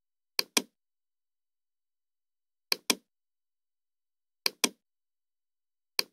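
Computer mouse button clicked four times, every one and a half to two seconds; each click is a pair of sharp snaps, press and release.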